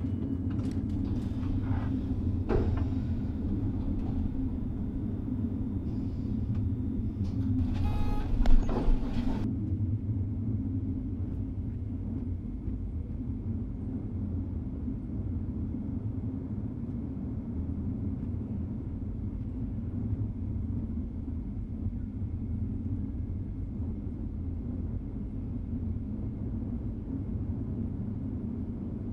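A steady low rumbling drone, with a few scattered knocks in the first several seconds and a sharp, ringing louder sound about eight and a half seconds in.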